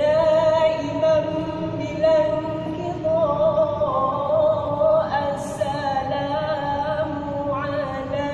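A women's vocal group singing a gambus-style Islamic song in unison, holding long notes that waver in pitch.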